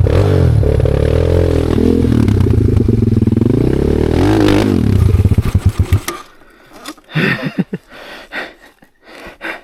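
Off-road motorcycle engine revved hard, its pitch dipping and rising as the clutch is popped to climb an obstacle, then cutting out about six seconds in. Scattered scraping and clattering follow as the bike stalls on the climb.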